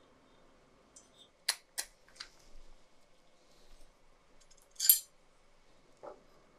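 Small plastic and metal parts of an LED projector headlight clicking and clinking as they are handled during disassembly: three quick clicks in the first half, the loudest about five seconds in, and a smaller one near the end.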